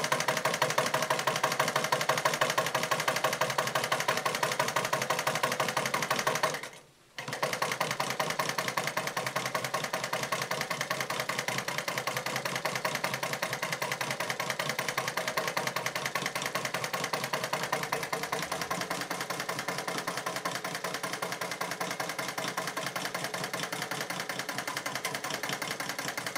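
Singer 31-15 industrial sewing machine, driven by a newly fitted servo motor, running with a fast, even stitching rhythm. It stops for about half a second around seven seconds in, then runs on a little quieter.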